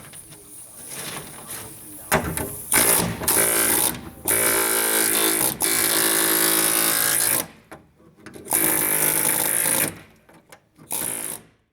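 A power tool runs in several bursts of a few seconds each, stopping and starting between runs. The longest run is a steady run of about three seconds near the middle.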